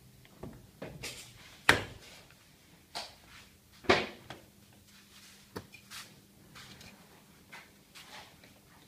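Sharp plastic clicks and knocks from a car's interior door trim being pried and pulled loose by hand, the trim pieces and clips coming away. Two louder snaps stand out, one just before two seconds in and one about four seconds in, with lighter clicks and rustles between.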